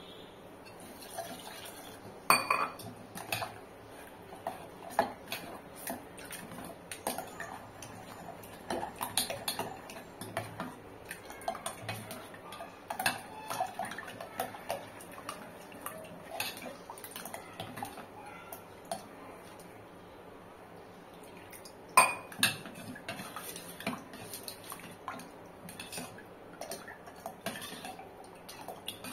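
A steel ladle stirring thin rice-flour and rava dosa batter in a stainless steel pot, clinking and scraping against the metal sides. There are sharper clanks about two seconds in and again near 22 seconds, and a short quieter lull just before the second one.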